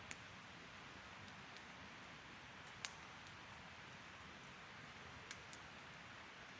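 Wood fire burning with a faint steady hiss, broken by four sharp crackling pops: one at the start, the loudest just before halfway, and two in quick succession near the end.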